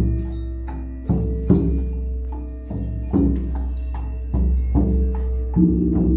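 A group improvising on hand percussion: irregular struck notes, about seven, that ring on with low pitched tones, with short bursts of high rattling between them.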